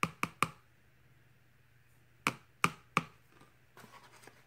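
Spoon tapping sharply against the rim of a plastic tub, knocking tapioca starch off it: three quick taps, then three more about two seconds later, followed by faint scraping.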